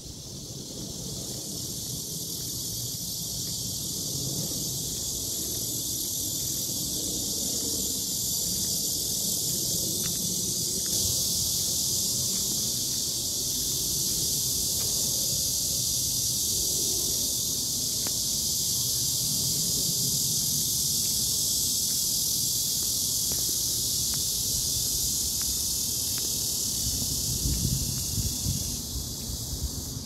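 A chorus of cicadas droning: a steady, loud, high-pitched buzz that hardly varies. There is some low wind and handling rumble on the phone's microphone, more of it near the end.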